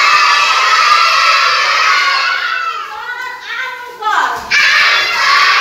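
A class of young children shouting and calling out together, loud and overlapping, in two bursts with a short lull between them.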